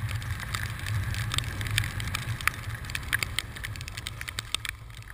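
Wind rumbling over a GoPro camera as the skier wearing it rides downhill, with many irregular sharp clicks and scrapes from skis on snow.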